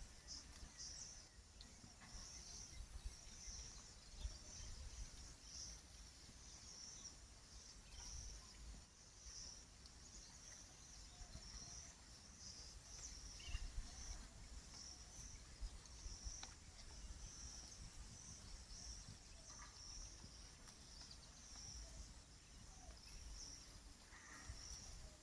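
Faint insects chirring in the background, a high pulsing trill repeating about one and a half times a second, with low wind rumble on the microphone and a few faint, short bird calls.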